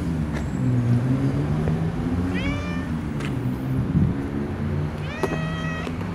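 A tabby cat meows twice, short rising-then-falling calls about two and a half seconds apart, over a steady low hum.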